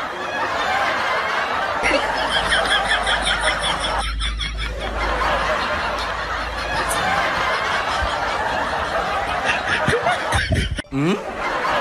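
People laughing, snickering and chuckling, with the sound changing abruptly about two seconds in and again near the end.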